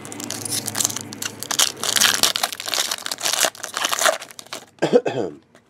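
Foil trading-card pack wrapper being torn open and crinkled in the hands, a dense run of crackling that lasts about four seconds and then stops.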